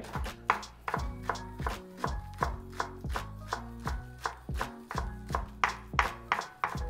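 Chef's knife mincing scallion greens on a wooden cutting board: a steady rhythm of quick chops, about two to three strikes a second, over faint background music.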